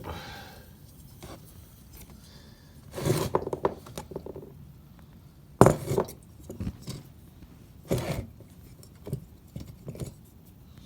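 Small metal camping gas stove and cook pot being handled: scattered clinks, scrapes and knocks, with a cluster of clatter about three seconds in and the loudest knock a little later.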